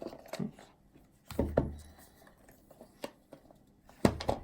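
Cardboard and paper packaging being handled on a table: scattered soft knocks and rustles, a dull thump about a second and a half in, and a few sharp taps near the end.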